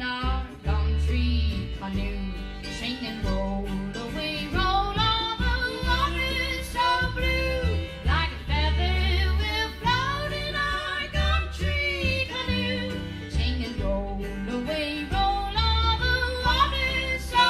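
Old-time string band playing live: fiddle, upright bass, mandolin and acoustic guitar, with the upright bass holding low notes under a bending, sliding melody line.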